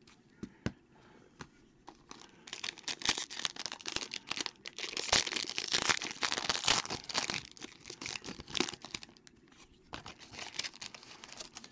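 Silver foil trading-card pack being crinkled and torn open by hand: a few small clicks at first, then a dense stretch of crinkling and tearing from about two and a half seconds in, thinning out near the end.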